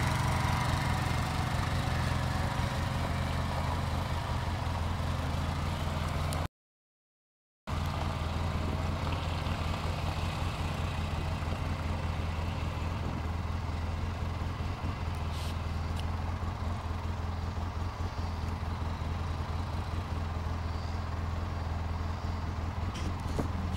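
Four-wheeler (ATV) engine running with a steady low drone. The sound cuts out completely for about a second, roughly a quarter of the way in.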